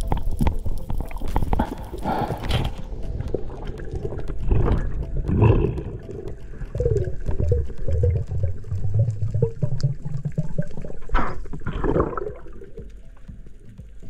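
Muffled underwater water noise from a swimming skin diver: rushing, gurgling water that swells and fades every few seconds, with short wavering gurgles in the middle.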